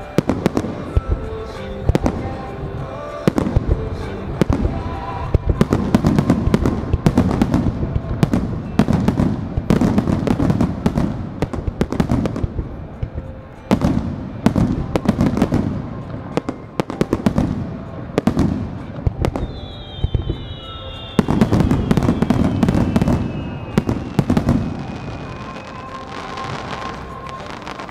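Aerial fireworks shells bursting in quick succession, a dense barrage of booms and crackles. About twenty seconds in, one whistle falls in pitch for several seconds. The bursts thin out near the end.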